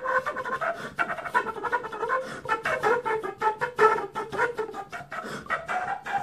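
Quena, the Andean notched flute, playing a melody in a quick run of short notes.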